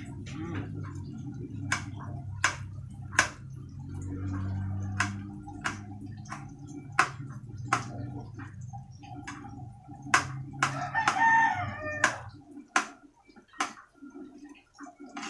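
Knife clicking against a ceramic plate as a vegetable is sliced on it, about one click a second. A rooster crows once in the background about ten and a half seconds in, and a low steady hum cuts off about twelve seconds in.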